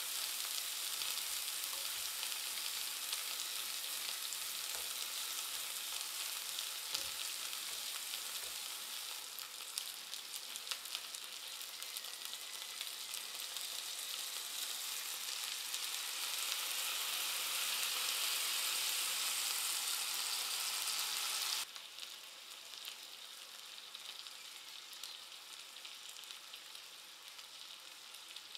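Chicken breasts and minced garlic sizzling steadily in hot fat in a cast-iron skillet, with a few light clicks of tongs in the first seconds. About three-quarters of the way through, the sizzle abruptly drops to a softer level and carries on.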